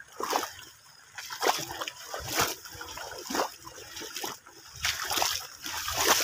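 Water splashing and sloshing as a pair of bulls wade through a flooded field pulling a wooden plank leveller (sohaga), with repeated splashes about once a second.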